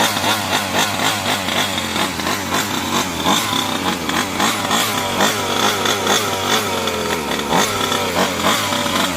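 Two-stroke gas engine of a large-scale RC car running and revving up and down over and over in quick blips of the throttle.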